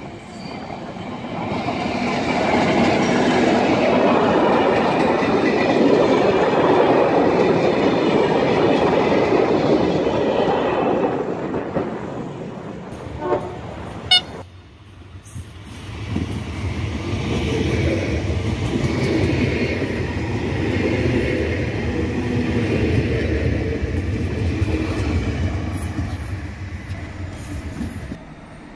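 A diesel locomotive hauling passenger coaches passes close by, its engine and the wheels on the rails loud for about ten seconds before fading. After a sharp click, a second train passes, this one with a deep rumble, for about twelve seconds.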